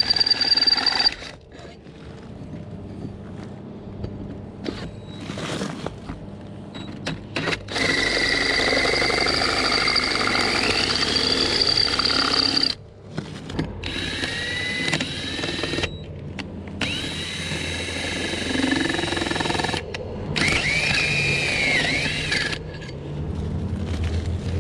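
Electric drill boring out bolt holes in a metal ATV hitch, lubricated with Yamalube oil. It runs in stretches of several seconds with short stops between them, and the cutting gives high whining tones that waver in pitch.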